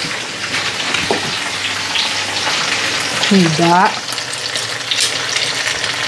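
Chicken pieces sizzling and crackling as they fry in a hot pan, a steady spattering hiss with many small pops.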